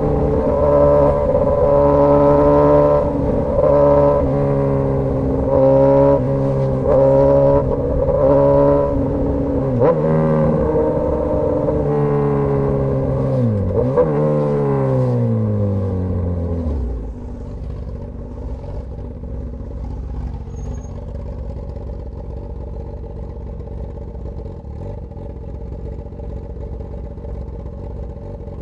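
Straight-piped Suzuki GSX-S1000 inline-four running loud, the throttle rolled on and off several times, then the revs fall away about fifteen seconds in and it settles to a quieter, steady engine sound.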